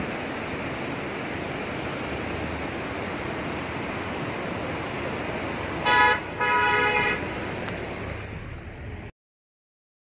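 Rushing whitewater of a mountain river, a steady noise, with a vehicle horn honking twice about six seconds in, a short toot then a longer one. The sound cuts off suddenly about a second before the end.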